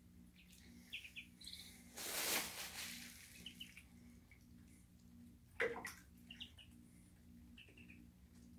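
Muscovy ducklings peeping in short, high chirps as they paddle in a shallow tub of water. A burst of splashing about two seconds in is the loudest sound, and a brief sharp sound comes a little past halfway.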